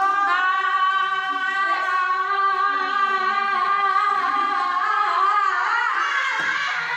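A woman's voice holding one long 'aaah' note, steady at first, then wavering about five and a half seconds in and breaking off near the end. The unbroken 'aaah' is the game's sign that the diver is still holding her breath under water; when it stops, her air has run out.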